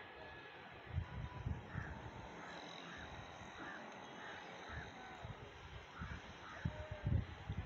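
Outdoor ambience with a bird calling in short, repeated notes, several in a row through the middle, and a few low thumps.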